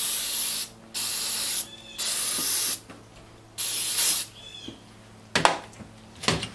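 Aerosol brake cleaner sprayed in four short hissing bursts into a disassembled forklift power steering cylinder to rinse it out, followed near the end by two knocks on the metal workbench.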